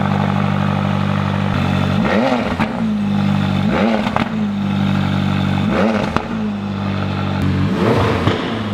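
Car engine idling steadily, blipped on the throttle four times; each blip quickly rises in pitch and drops back to idle.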